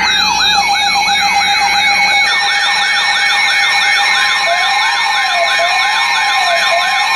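Several electronic sirens layered together: a fast yelp rising and falling about two to three times a second over steady tones, joined about four and a half seconds in by a slower wail cycling about once a second.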